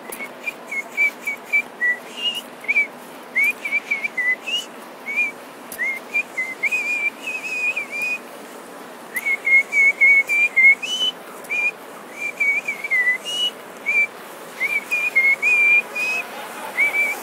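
A person whistling a tune in short, quick notes, in runs with brief pauses, over a steady background hiss.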